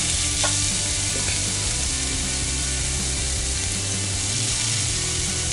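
Shredded potato sizzling steadily in oil on the hot plates of an electric sandwich grill as more is spooned on, with a light spoon tap about half a second in.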